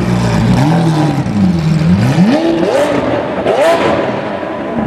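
Lamborghini Aventador S V12 with an aftermarket IP exhaust, revving as the car pulls away. The engine note dips, then climbs sharply twice, with short crackles from the exhaust at the top of the revs.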